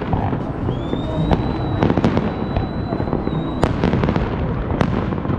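Fireworks display: a string of sharp bangs over a continuous low rumble of the show, with a high whistle that rises about a second in and holds steady for about three seconds, ending near a loud bang.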